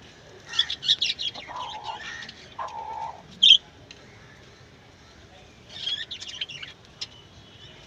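Country chickens chirping and calling in short bursts, with two held calls in the first few seconds, one sharp loud call about three and a half seconds in, and another flurry of chirps near six seconds.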